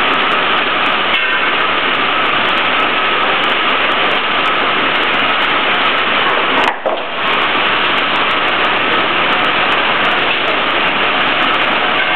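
Üstünkarlı sawmill edger line running: a steady, loud machine noise from the saw and roller conveyors, dipping briefly about seven seconds in.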